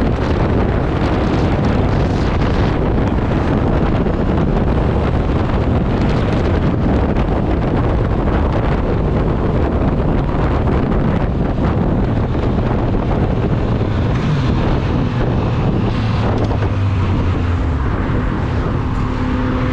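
Motorcycle riding at freeway speed: loud, steady wind rushing over the microphone, with engine, tyre and traffic noise underneath.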